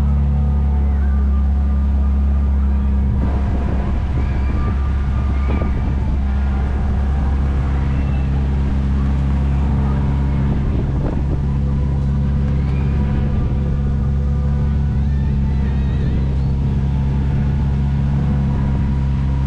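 Engine of a slow-running vintage-style Main Street cab, a steady low hum that shifts slightly in pitch about three seconds in.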